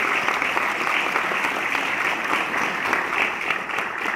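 Audience in a lecture hall applauding steadily, many hands clapping at once.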